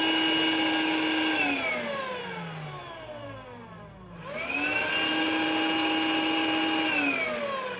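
Yamazen KSC-960D cordless cyclone vacuum cleaner's motor whining steadily, then stopping and winding down in falling pitch; it starts up again a few seconds in with a quick rising whine, runs steady, and winds down once more near the end. The repeated stopping fits the frequent shut-downs with red/green blinking lights that this cleaner is being serviced for.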